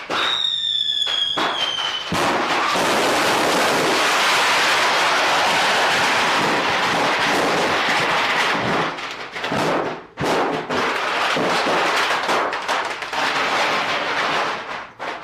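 Fireworks going off, a rapid dense crackle of many small bangs that runs almost without a break. A high whistling tone sounds first and falls slightly in pitch over about two seconds.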